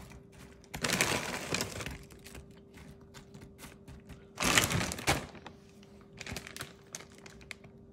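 Plastic bag of pulled chicken rustling in two brief bursts, about a second in and again about four and a half seconds in, with scattered light clicks and taps as the chicken pieces are set by hand onto frozen vegetables in a pie crust.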